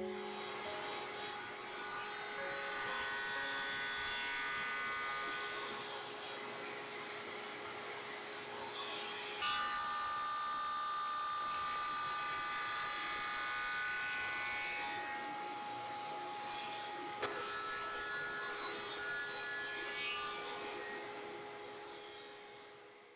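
Table saw running and cutting a walnut blank: a steady whine of motor and blade over the hiss of the cut. The tone changes abruptly about nine seconds in and again about seventeen seconds in, then fades out near the end.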